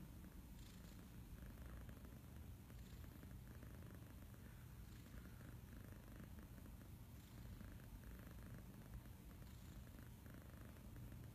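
Domestic kitten purring steadily and softly, a fast low rumble that swells faintly with each breath about every two seconds.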